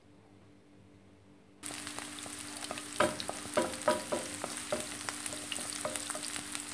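Sliced onions sizzling in hot olive oil in a stone-coated non-stick frying pan, the sizzle starting suddenly about one and a half seconds in. From about halfway through, a wooden spatula stirs them, knocking and scraping against the pan.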